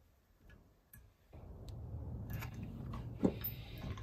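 Steel vacuum brake booster housing being worked by hand in a bench vise: two light clicks, then from about a second in a steady rough scraping of metal parts being handled, with one sharp metallic click about three seconds in.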